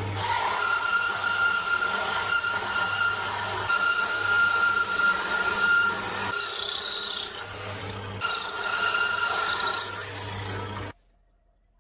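Drill press running with an adjustable circle cutter scraping circles out of plywood: a steady motor hum and a high whine under a rasping cut. It stops abruptly about a second before the end.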